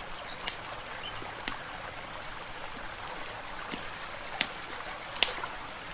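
Wood fire crackling, with about five sharp pops over a steady trickle of water.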